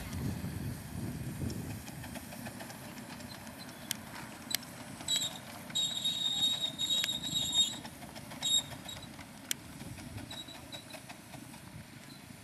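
Miniature ride-on train rolling along its track: a low rumble of wheels on rails with scattered clicks. A high, thin squeal sounds on and off from about five to eight and a half seconds in.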